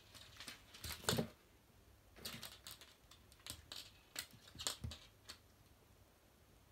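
A kitten's paws and claws scrabbling and tapping on wooden floorboards as it bats a small toy about: irregular clicks and scuffs, loudest about a second in, dying away near the end.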